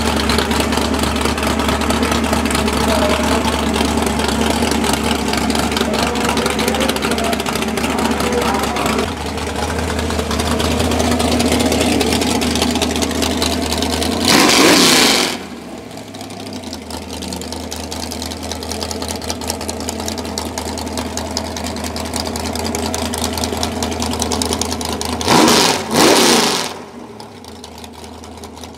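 Plymouth station wagon drag car's engine idling, revved sharply once about halfway through and twice in quick succession near the end.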